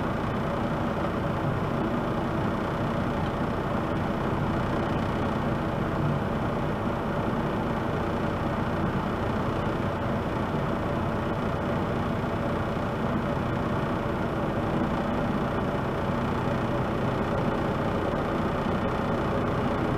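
Steady hum and rumble heard inside a car's cabin as it idles along at a crawl, with no distinct knocks or changes.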